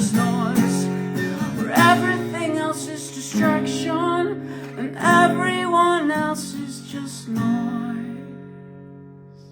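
Closing bars of an emo rock song: strummed acoustic guitar under a few last sung phrases, ending on a final chord that rings out and fades away over the last couple of seconds.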